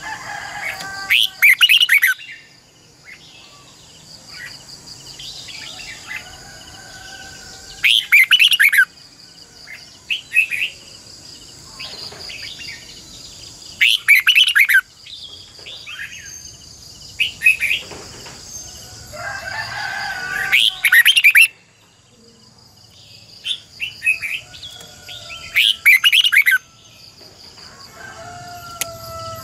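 Red-whiskered bulbul singing loud, short, rich phrases about every few seconds.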